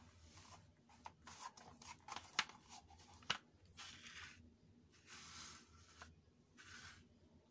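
Faint light clicks and taps of soft jelly flats knocking against a wooden floor as a foot slips in and out of them, with a small metallic jingle from a beaded chain anklet. Two sharper knocks come about two and a half and three and a half seconds in, followed by a few soft rubbing swishes.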